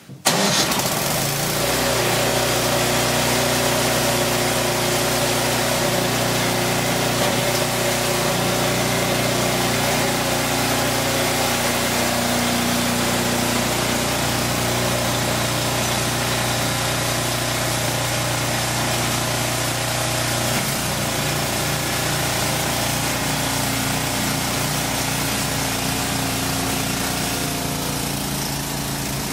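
Snow blower's small engine running steadily at working speed, with a shift in its pitch about two-thirds of the way through. By the end the machine is clearing fresh snow, throwing it from the chute.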